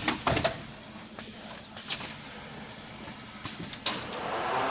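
Automatic canvas stretching machine cycling: its clamps and slides clack and knock, two short high squeals fall in pitch in the first two seconds, and a rushing hiss swells near the end.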